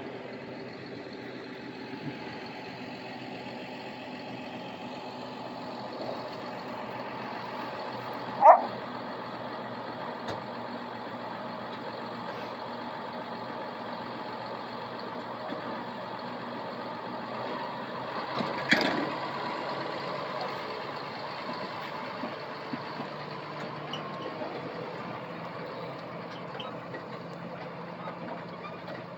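Farm machinery engine running steadily. A loud, short, sharp sound about eight seconds in, and a weaker one a little before the twenty-second mark.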